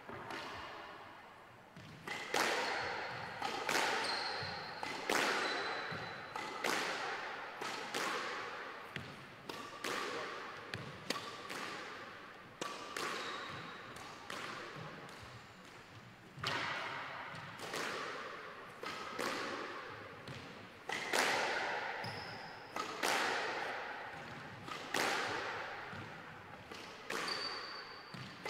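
A squash ball struck with rackets and slapping off the court walls, a sharp crack about once a second, each ringing out with a long echo in the glass-walled court.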